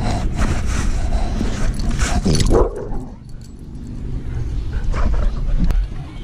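A dog vocalising at close range to a dog-mounted camera, strongest about two seconds in, over rubbing of fur and harness and wind on the microphone. It quietens briefly around three seconds.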